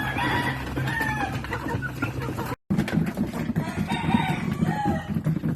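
Chickens clucking and calling in short bursts, in two spells, over a steady low rumble, with a brief break a little past halfway.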